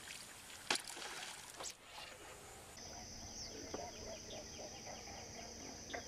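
Faint water sounds of a topwater bass lure being retrieved across calm water, with a few light splashes and ticks in the first two seconds. About three seconds in, a steady high-pitched hum starts and runs on under small quick ticks.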